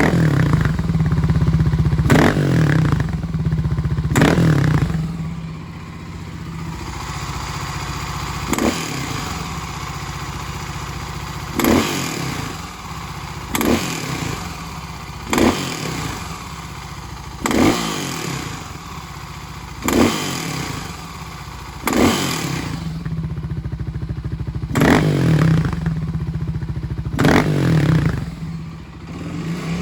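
Kawasaki KLX250S single-cylinder engine, big-bored to 351 cc, revved for the first few seconds, then idling with quick throttle blips about every two seconds, then revved again near the end. The blips off idle carry the odd noise the owner is asking about.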